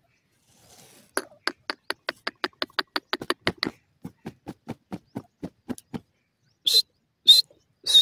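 Francolin (teetar) calling: a quick run of short, harsh notes, about four or five a second, that grows fainter and stops, then a few louder, shriller calls near the end.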